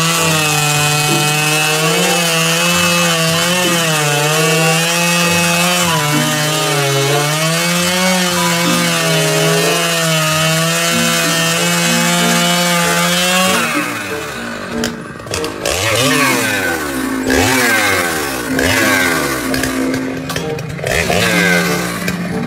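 Gasoline chainsaw running at high speed as it cuts through a log, its pitch held nearly steady for about thirteen seconds. It is then revved up and down over and over in quick rising and falling sweeps.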